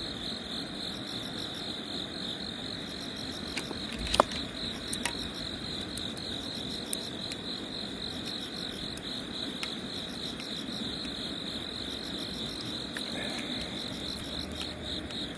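Crickets chirping in a steady, pulsing night chorus, with a few sharp clicks about four seconds in.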